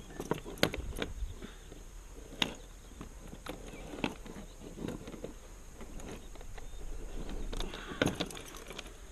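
Irregular metallic clinks and rattles, with scattered knocks, of a metal chain fish stringer being handled as a crappie is clipped onto it.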